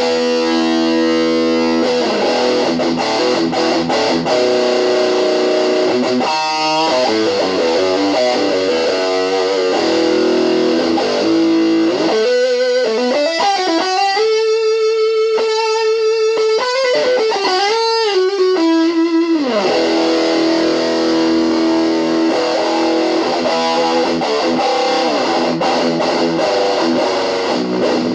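Electric guitar played through a repaired Boss DS-2 Turbo Distortion pedal into a small Kalamazoo Model 2 amp, the distortion working: held, sustaining distorted chords. In the middle comes a single-note passage with bends and a wavering vibrato, then the chords return.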